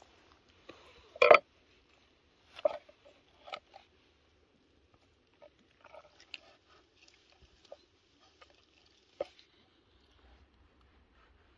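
Knocks and light clatter of a cleaver and knife on a wooden cutting board as raw chicken is cut and handled, with the loudest knock about a second in and a few smaller ones after. Faint soft clicks and rustles fall between the knocks.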